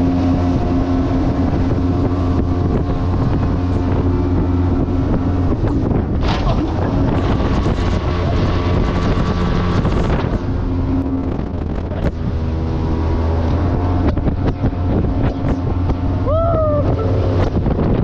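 Bratt jet boat's engine running steadily at speed under way, its pitch dipping briefly about six seconds in and again near twelve seconds.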